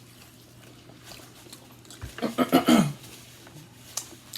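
A short wordless vocal sound, falling in pitch, about two seconds in, over a low steady hum, with a light click near the end.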